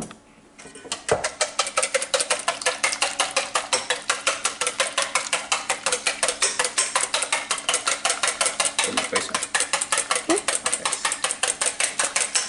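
Wire whisk beating eggs and milk in a stainless steel bowl: rapid, steady metallic clinking at about five strokes a second, starting about a second in after a single knock.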